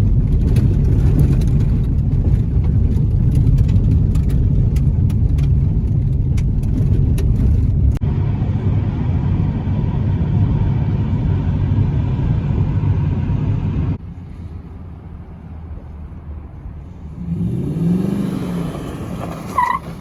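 Lifted Toyota Camry driving on a rough dirt road: a steady, loud rumble of tyres and engine with scattered ticks and knocks. The sound changes abruptly twice and is quieter over the last few seconds.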